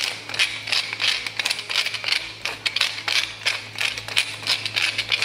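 Pepper mill grinding black peppercorns: a quick run of gritty, ratcheting clicks, about four a second.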